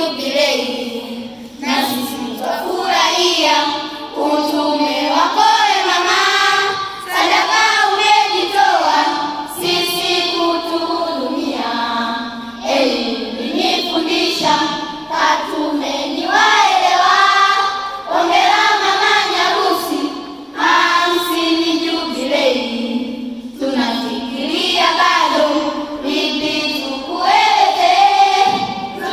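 A group of children singing a poem together as a choir, in phrases a couple of seconds long with short breaks between them.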